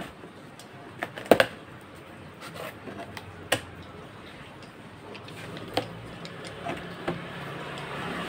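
A cardboard box being opened by hand: a box cutter on the packing tape, then the flaps and the plastic inner packing handled, with scattered clicks and knocks. The loudest are a pair of sharp knocks about a second and a half in.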